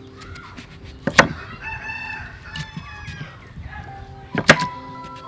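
Large kitchen knife chopping through raw pumpkin into a wooden chopping block: two sharp knocks, about a second in and near the end. Between the knocks a rooster crows in the background.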